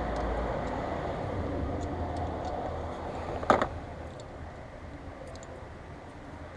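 Scattered light clicks and one sharp metallic clank, about halfway through, of hand tools at work on the engine's belt drive and idler pulley, over a steady low rumble.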